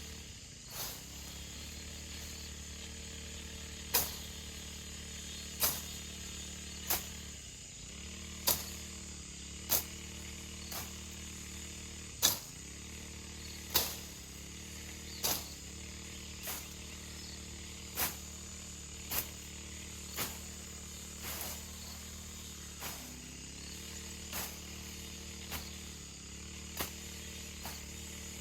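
A run of sharp clicks or knocks, about one every second or so, over a steady background hum.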